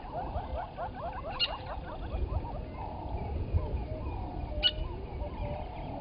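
Dawn chorus of wild animal calls: a fast run of short rising calls, about seven a second, that gives way after about two seconds to looser, slower calls over a steady row of lower notes. Two sharp clicks stand out, one early and one near the end.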